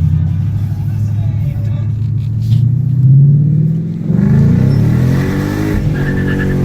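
2015 Mustang GT's 5.0 Coyote V8 through an SVE stage 2 exhaust with the X-pipe resonator deleted, running steadily and then, about four seconds in, put under hard acceleration with the revs climbing quickly. The revs break off briefly near the end for a gear change and start climbing again.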